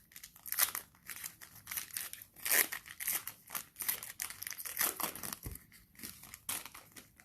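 Crinkling and rustling of a foil trading-card pack wrapper being handled and torn open, in quick irregular bursts.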